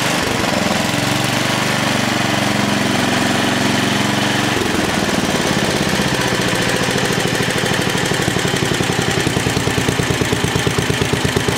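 Tecumseh HH100 10 hp single-cylinder engine running on a replacement aftermarket carburetor. It runs steadily, then about four and a half seconds in drops to a slower speed where each firing pulse can be heard.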